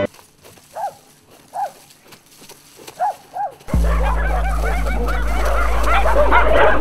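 Four separate dog barks, then about four seconds in a loud pack of dogs starts barking and yipping over a deep, steady drone.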